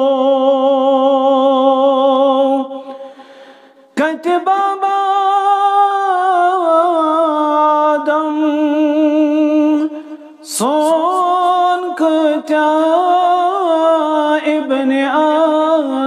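A man's solo voice singing a nasheed with no accompaniment, holding long wavering notes. The voice trails off twice, about three and ten seconds in, then takes up the next phrase.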